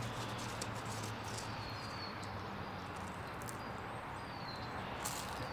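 Outdoor ambience: a steady low hum and hiss with a few short, high, falling bird chirps.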